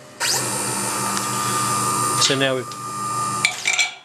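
CNC router axis drive motors whining as the gantry head moves off rapidly after touching off on the Z tool-setter puck. The pitch rises as the motors speed up and then holds steady for about two seconds. A few shorter motor whines follow near the end.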